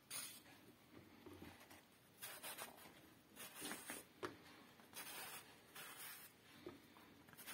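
Faint scraping strokes of a kitchen knife slicing through peeled eggplant held in the hand, roughly one short cut a second.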